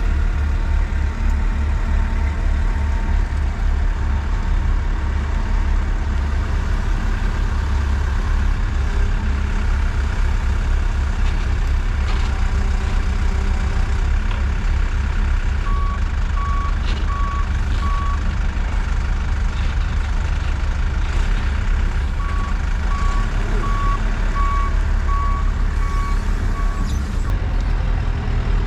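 Heavy truck engine running with a steady low rumble. A reversing alarm beeps about twice a second in two runs, a short one past the middle and a longer one near the end: the vehicle is backing up.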